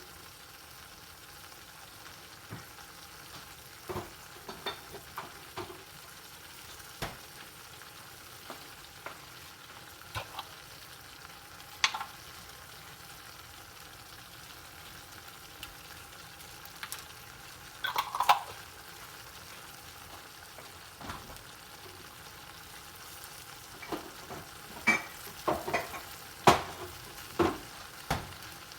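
Lamb tripe frying in a pan with a steady sizzle, stirred with a utensil that knocks and scrapes against the pan now and then. The knocks come more often and louder near the end.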